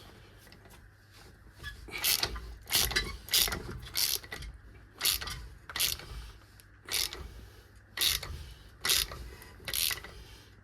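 Ratchet wrench clicking in repeated short strokes, about ten of them starting about two seconds in, as the large driveshaft bolt is tightened.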